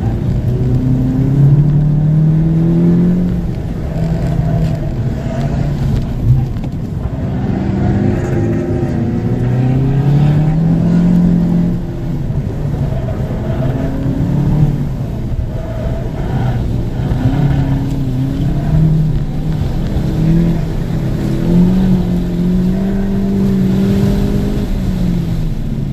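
Mk7 VW Golf GTI's turbocharged 2.0-litre four-cylinder heard from inside the cabin while the car is driven hard through a cone course, the engine note climbing under acceleration and falling back again and again as the driver lifts, brakes and shifts.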